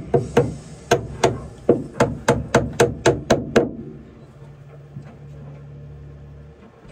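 A hammer striking about a dozen quick blows, speeding up to three or four a second, then stopping; a faint low steady hum follows.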